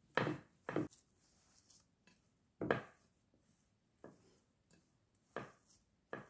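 Bare hands squeezing and crumbling a buttery crushed vanilla-cookie mixture for a cheesecake crust in a glass dish, heard as several short, separate crumbly rustles.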